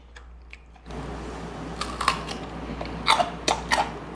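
Crunching as a man chews kkakdugi, cubed radish kimchi: a run of crisp crunches from about two seconds in.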